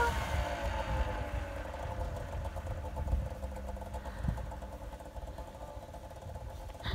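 Arctic Cat snowmobile engine idling after a tip-over on the hill, its revs settling down in the first second and then holding steady.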